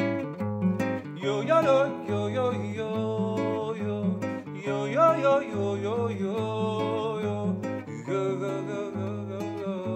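Nylon-string classical guitar strummed in a steady forró xote rhythm over a C#m7, A7, G#7 progression, with a wordless voice singing rising 'oi, oi' lines over it.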